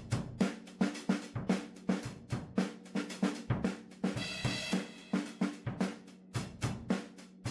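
Closing music with a steady drum-kit beat, about three hits a second, and a brief higher chord about four seconds in.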